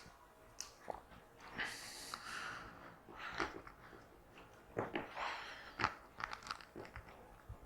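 Handling noise from pressing a joining piece onto coaxial TV cable: scattered sharp clicks and short crunching, rustling bursts of plastic and cable being worked by hand.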